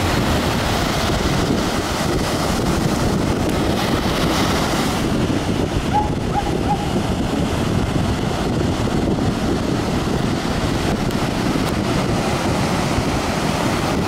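Ocean surf breaking on the shore, with wind buffeting the microphone.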